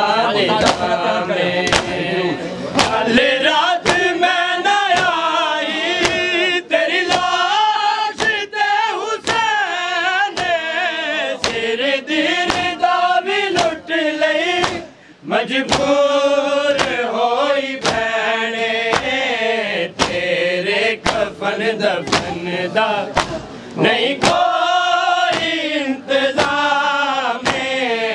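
Male mourners chanting a noha lament together over a steady beat of chest-beating (matam) slaps, about one a second; the voices break off briefly about halfway.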